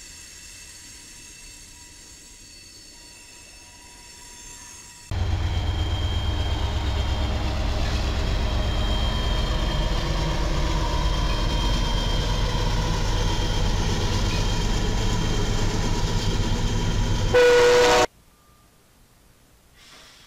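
Freight cars rolling past quietly. At about five seconds it gives way abruptly to a BNSF diesel locomotive passing close with a loud, steady engine rumble and wheel noise. A brief loud horn blast near the end stops suddenly, leaving only a faint background.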